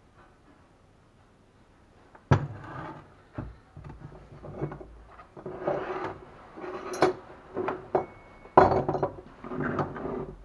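Metal alternator parts being set down and moved about on a wooden workbench: a sharp knock about two seconds in, then clattering, scraping and knocking, with the loudest knock a little after eight seconds.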